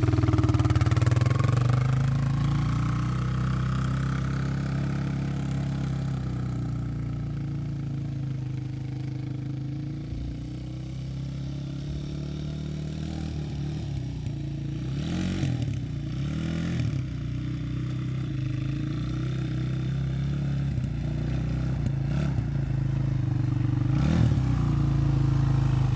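Kawasaki four-wheeler's engine pulling away and growing fainter as the quad rides off, then growing louder again as it comes back near the end, with a few rises in pitch as the throttle is opened.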